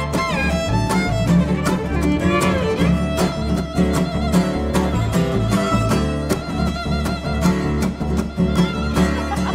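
Live acoustic roots trio playing an instrumental break: the fiddle takes the lead with sliding notes, over a plucked upright bass and a steady strummed rhythm.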